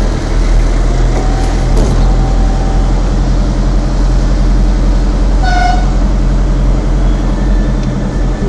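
Steady engine and road drone heard from inside a car driving slowly with the windows up, with a short high toot about five and a half seconds in.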